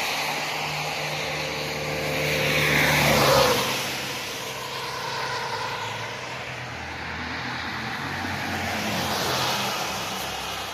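Tyres hissing on a rain-wet road under a steady engine hum. About three seconds in, a passing car swishes by, its noise swelling and falling in pitch as it goes, and a smaller swell rises and fades near the end.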